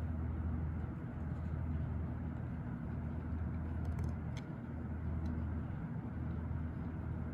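A steady low rumble that runs throughout, with a few faint light clicks near the middle as small parts are handled.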